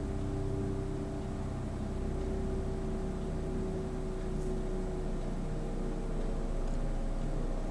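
Helicopter flying over: a steady low drone with a tone that sinks slowly in pitch over several seconds as it passes.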